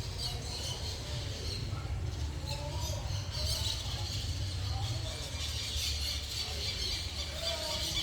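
Cats meowing faintly: a few short calls that rise and fall in pitch, over a steady low hum.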